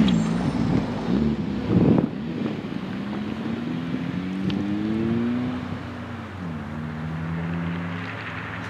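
A motor vehicle's engine accelerating, its pitch climbing over a few seconds, then dropping about six seconds in and running on lower as it fades.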